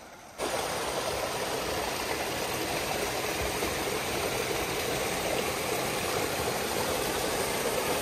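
Steady rush of falling water from a waterfall, starting abruptly about half a second in.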